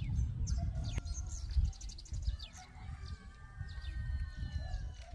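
Chickens and small birds calling in the background: scattered chirps, and a rooster crowing in one long held call from about two and a half seconds in, over a low rumble.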